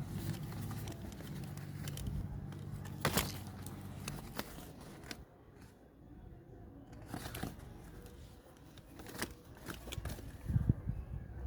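Packaging being handled during an unboxing: rustling and crinkling with scattered sharp clicks, the loudest about three, seven and nine seconds in, over a low steady hum during the first few seconds.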